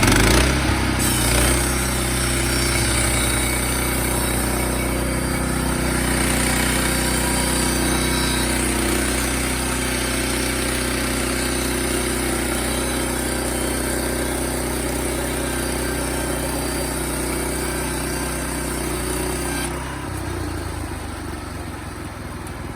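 Sawmill engine running steadily under load while the blade cuts lumber. The cutting noise stops about twenty seconds in, leaving the engine running more quietly.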